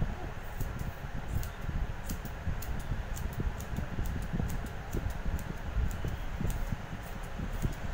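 Hairdressing scissors snipping through a section of thick hair, a quick, irregular series of short, sharp clicks, over a steady low rumble.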